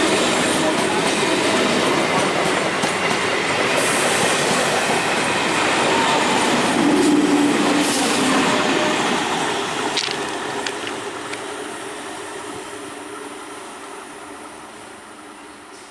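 EMU local train passing close by: a loud steady rush and clatter of wheels on the rails, with a few sharp clicks about ten seconds in. The noise then fades steadily over the last six seconds as the train moves away.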